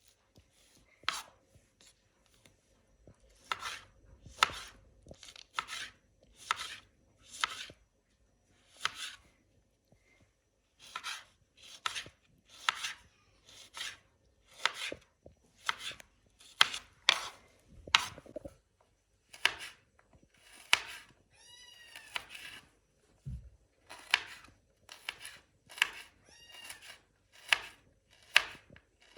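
Knife chopping food on a cutting board, in irregular strokes about one or two a second, with short pauses between runs.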